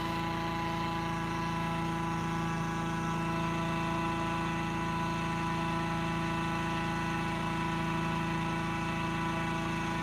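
Hot air balloon inflator fan's engine running at a steady pitch, blowing cold air into the balloon envelope as it fills on the ground.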